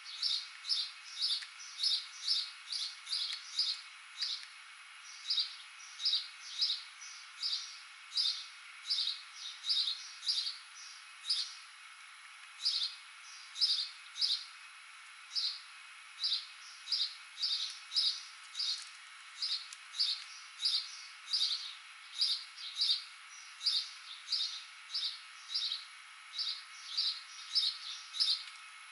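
A small songbird chirping over and over: short, high chirps about two to three a second, in runs broken by brief pauses.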